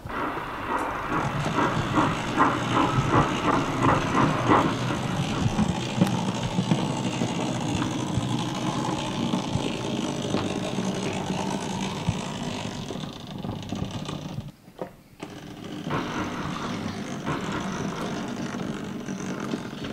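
DC-powered O gauge model crane tank locomotive running along the track, its motor and gears whirring and its wheels clicking over rail joints and pointwork, about three clicks a second for the first few seconds. The sound drops away briefly about 15 seconds in, then picks up again.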